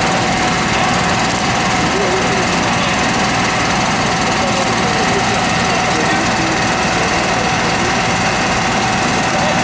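Fire truck's engine running hard and steady to drive its water pump, with a constant whine held through, and faint voices underneath.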